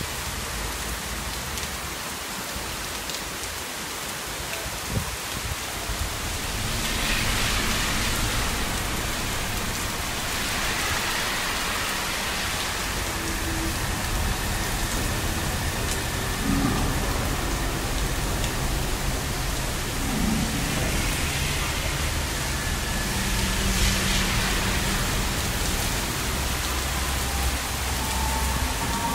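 Heavy thunderstorm rain pouring onto pavement, puddles and trees, a steady hiss that swells in heavier gusts about seven seconds in and again near 24 seconds. A low rumble comes in near the end.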